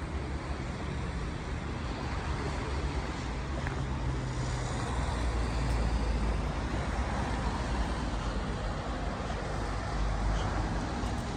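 Road traffic going by on a town street: a steady rumble of cars with a low engine hum in the first few seconds, swelling about halfway through.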